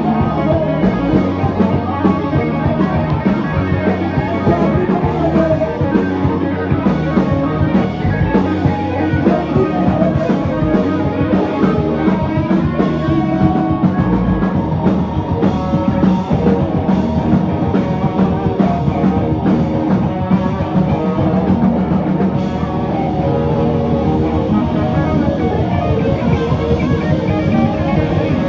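Live rock jam: electric guitars played over a drum kit, loud and continuous.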